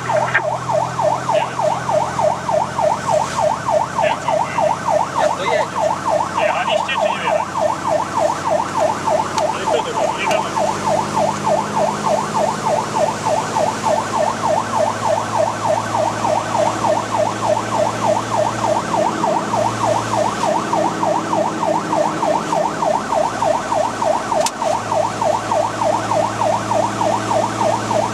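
Fire engine siren sounding a fast yelp, its pitch sweeping up and down several times a second, heard from inside the Magirus Deutz fire engine's cab with the truck's diesel engine running underneath.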